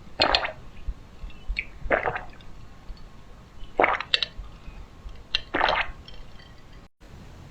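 A person gulping a drink close to the microphone: four wet swallows, roughly two seconds apart.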